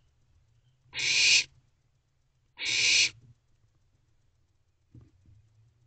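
Barn owlets giving raspy hissing calls, two of them, each about half a second long.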